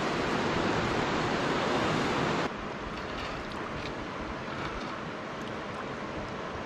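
Steady rush of river water, dropping sharply in level about two and a half seconds in.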